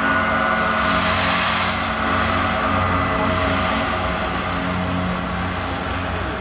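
Gongs and singing bowls ringing together in a dense sustained drone: many held tones over a wavering low rumble, with a bright shimmering wash that swells about a second in and then eases.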